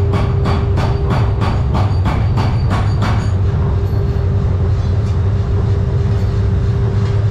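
Steady machinery hum and low rumble, with an even knocking about four times a second that stops about three seconds in.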